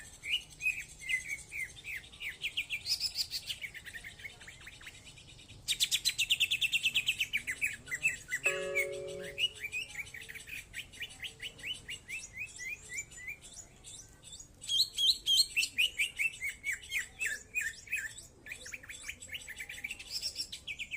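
Cucak ijo (green leafbird) singing: long, fast strings of sharp chirps and trills in repeated phrases. A brief low steady tone sounds once, about eight seconds in.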